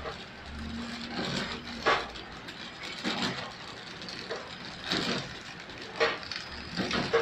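Horizontal flow-wrap packing machine running while wrapping chikki bars: a steady low hum with sharp mechanical clacks, roughly one a second and not quite evenly spaced.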